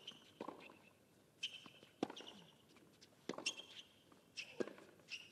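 Tennis rally on a hard court: faint sharp knocks of racket strokes and ball bounces about once a second, several followed by short high squeaks.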